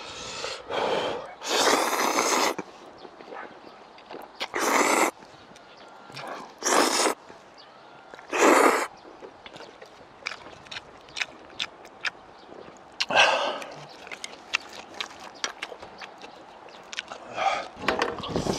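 A person slurping chewy spicy cold jjolmyeon noodles in about five loud, short slurps, with wet chewing and lip-smacking clicks between them, the clicks thickest in the last several seconds.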